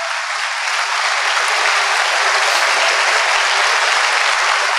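Audience applauding, a dense clapping that swells a little in the first second and then holds steady.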